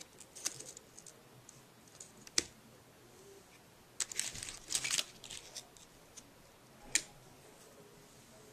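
Plastic packets crinkling and small items clicking against an open metal Altoids tin as its contents are handled. A few separate sharp clicks, with a burst of crinkling about four to five seconds in.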